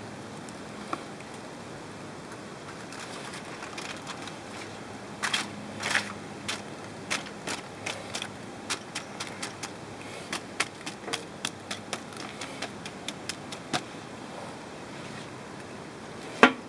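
Grill utensils clicking and tapping against the grill grates and foil, a run of sharp, uneven clicks about two or three a second in the middle, over a steady hiss. Near the end comes one loud clank as the grill lid is handled.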